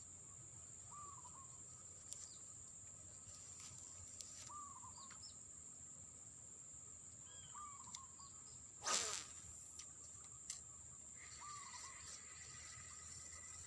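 Quiet riverside ambience: a steady high insect drone with a bird's short call repeating about every three to four seconds. One sudden louder noise about nine seconds in.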